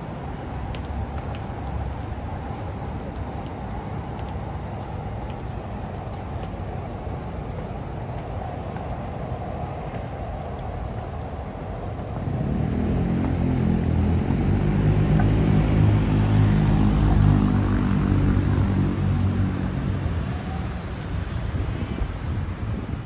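Busy street ambience, then a vehicle passes close by from about halfway through: its low hum swells to its loudest a few seconds later and fades away near the end.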